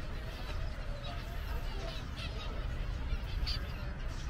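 Outdoor ambience at a busy walking attraction: a steady low rumble, with faint distant voices and short, scattered high chirps.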